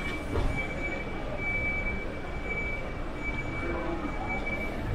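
Busy pedestrian shopping-street ambience: a low rumble of traffic and passersby, with a high electronic beeping tone that pulses on and off.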